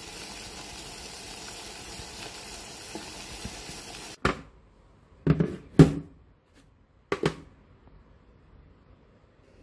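Water at a rolling boil in a stovetop pot with two eggs in it, a steady bubbling hiss. After a cut about four seconds in, several sharp clunks of kitchen items being set down on a countertop, the loudest near the middle.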